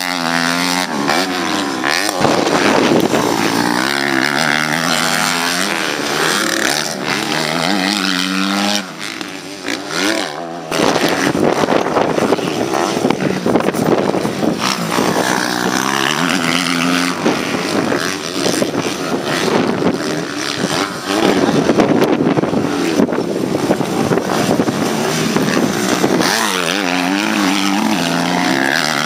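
Small-bore motocross bikes racing on a dirt track, engines revving up and dropping off again and again as the riders work through the jumps and corners. The level dips briefly about nine seconds in, then comes back up suddenly.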